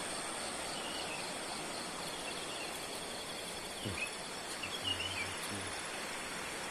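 Insects trilling steadily in thin, high, pulsing tones over an even wash of outdoor background noise, with a few short falling chirps about four and five seconds in.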